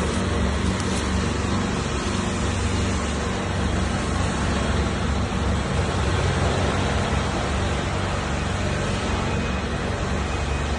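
Compact excavator's Kubota diesel engine running steadily, a constant low engine drone with no change in speed.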